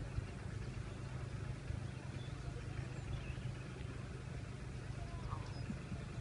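Steady low rumble of outdoor background noise, with a few faint scattered ticks.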